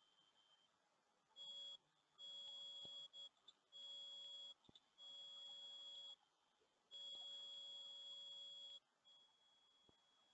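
Faint high-pitched electronic tone that keeps cutting in and out at irregular intervals, about five stretches lasting from under half a second to nearly two seconds, with near silence between them.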